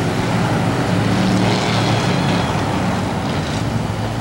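Ice-racing car engines running as the cars circle the track: a steady engine drone over a noisy hiss that swells a little about a second in.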